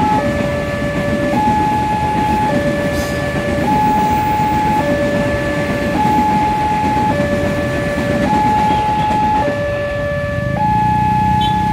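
Railway level crossing's electronic warning alarm sounding two alternating tones, a lower and a higher, switching a little more than once a second. Under it is the noise of a KRL Commuter Line electric train running past on the rails.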